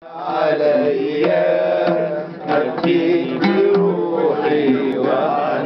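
An oud plucked with a pick, playing a melody with sliding notes and sharp, quick strokes.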